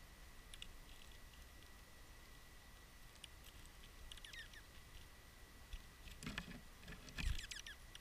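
Sparrows pecking and scratching at seed on a wooden feeder table: light, scattered taps and rustles, with a few faint high chirps. A louder scuffle and thump comes about seven seconds in.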